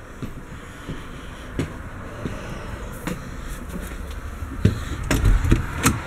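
Footsteps and knocks on the floor and a short stairway inside a fifth-wheel trailer, getting heavier near the end as the steps are climbed, over a steady low rumble.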